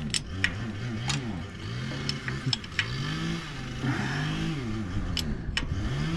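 Chainsaw engine revving up and down over and over, its pitch rising and falling about once a second, with a few sharp clicks scattered through.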